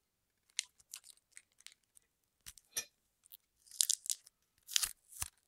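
Wrapping being torn and crinkled off a wrapped key: irregular small crackles and tearing sounds, loudest about four seconds in and again near the end.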